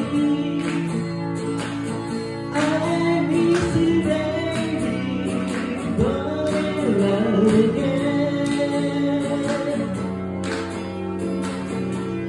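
A man singing to a strummed acoustic guitar, with long held notes in the vocal line.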